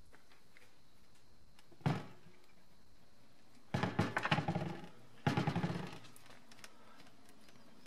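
BMW E30 325i brake caliper handled by hand as its guide-pin bolt and rubber boot are worked: one knock about two seconds in, then two short bursts of rapid clicking rattles.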